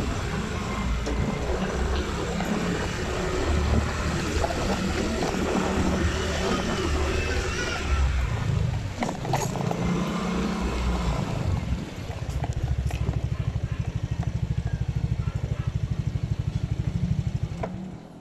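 Motorcycle riding along a street with road and wind noise, then settling to a steady idle about twelve seconds in, its engine pulsing evenly, until the sound drops away sharply at the very end.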